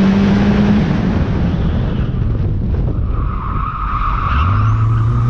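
Turbocharged Mitsubishi Lancer's 4G15 MIVEC engine pulling at steady revs, then off the throttle as the tyres squeal through a corner, then back on the throttle with the revs rising about four seconds in.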